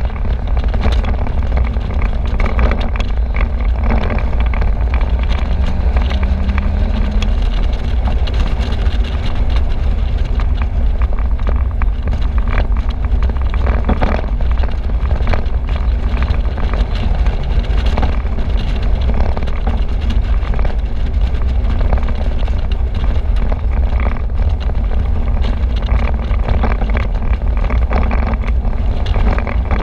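Open-top convertible driving along: steady wind rush over the microphone with tyre and engine noise beneath, and short gusts of wind buffeting here and there.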